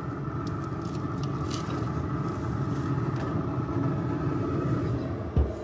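Steady hum of a running Z-Grills pellet grill, with faint light clicks and rustles as a frozen pizza is slid onto the pizza stone, and a single thump near the end.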